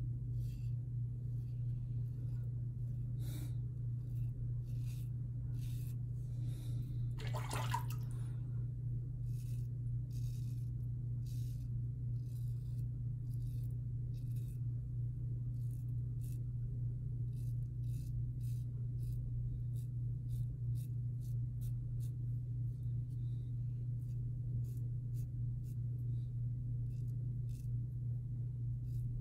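Vintage open-comb double-edge safety razor scraping through lathered stubble on the neck in many short strokes, on the second pass, over a steady low hum.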